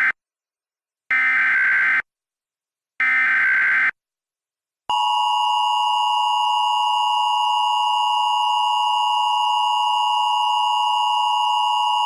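Emergency Alert System SAME header data bursts, the end of one and then two more, each about a second long and a second apart. About five seconds in, the EAS attention signal starts: a steady two-tone alarm that carries extra tones from an audio error in the virtual machine's recording.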